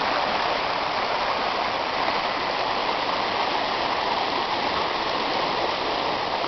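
Flooded creek rushing: a steady, even roar of fast brown water running high over its banks.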